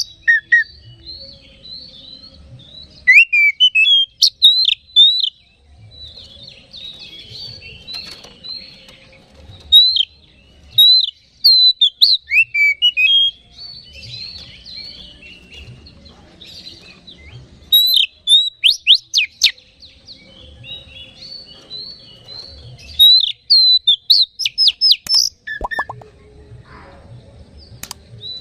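Oriental magpie-robin singing: loud, sharp whistled phrases of quick rising and falling notes in bursts every few seconds, with softer chattering between. It is a lure song of the kind played to stir other magpie-robins into singing.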